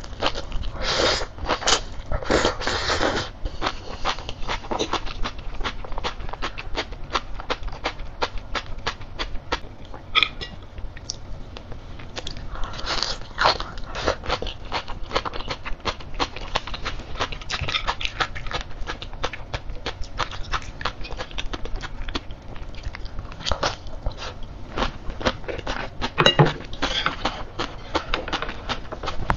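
Close-up chewing of crisp sea grapes: a dense run of small crunching clicks as the beads are bitten, with louder bursts of crunching near the start, about halfway through and near the end.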